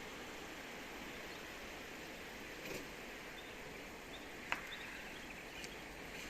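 Steady wind noise outdoors, with a few faint, short chirps of small birds in the second half and one sharp tick about four and a half seconds in.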